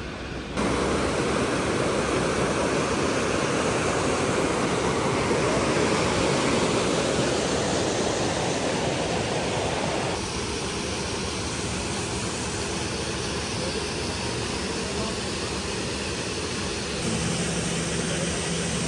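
Rushing water of a waterfall, a loud steady noise that drops a little about ten seconds in. Near the end a low steady hum joins it.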